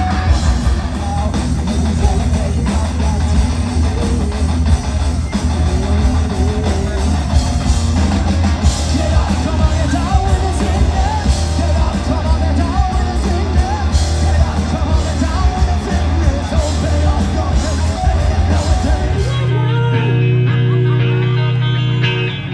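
Live heavy metal band playing: distorted electric guitars, bass and drums with a singer belting over them. About three seconds before the end it cuts to a different band, with guitar notes held and ringing.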